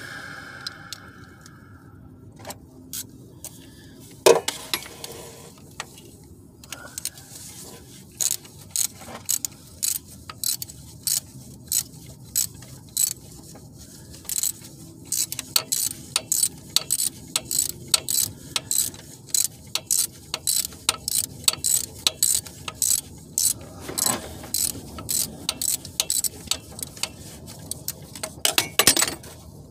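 Hand ratchet wrench clicking in quick back-and-forth strokes, about two a second, as a bolt is turned during a starter replacement. A single sharp knock comes about four seconds in.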